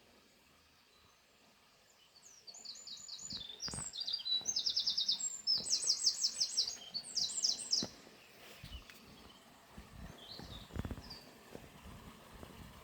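A songbird sings a run of quick trilled phrases, each a rapid string of short high notes, starting about two seconds in and lasting about five seconds. Irregular soft low knocks follow near the end, over a faint steady hiss.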